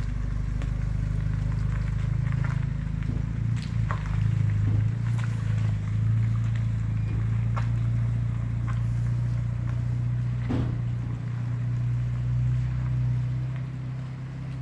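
A car engine running steadily while driving, a constant low drone with a few light clicks and knocks scattered through it.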